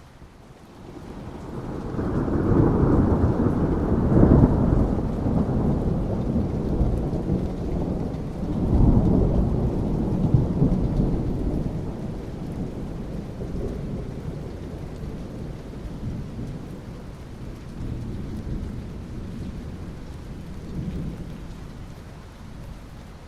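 Thunderstorm: a long, deep rolling peal of thunder that swells about a second in, crests twice and slowly dies away, over steady rain.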